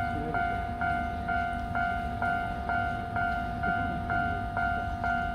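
Japanese railway level-crossing alarm ringing its two-tone ding about twice a second, steady and unbroken, over a low rumble.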